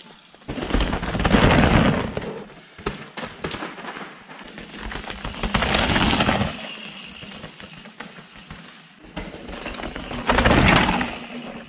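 Downhill mountain bikes passing close by on a loose dirt trail three times, each pass a swelling rush of knobby tyres rolling and skidding over dirt and gravel that dies away.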